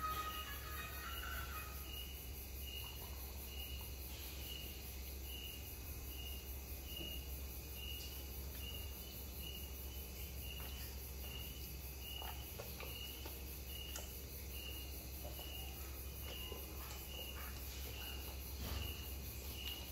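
High-pitched chirping repeating evenly about twice a second, cricket-like, over a steady low hum. Faint soft clicks come in later as a dog nibbles at its fur.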